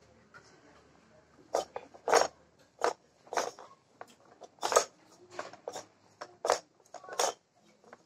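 Plastic toys on a baby's activity jumper being handled: irregular short, sharp clicks and clacks, starting about a second and a half in.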